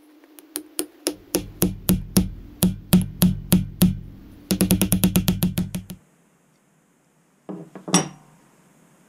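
Wooden mallet hammering a handle onto a metal fishing-reel plate. Sharp knocks come about three a second, then a quicker run of lighter taps, stopping about six seconds in. A few short knocks follow near the end.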